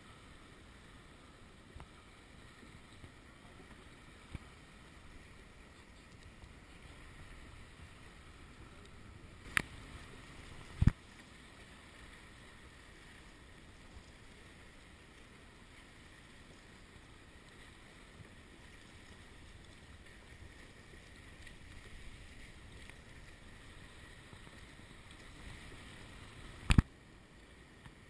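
Faint water sounds around a plastic sit-on-top kayak being paddled on calm sea. Sharp knocks break it twice, about a second apart, near ten seconds in, and once more near the end.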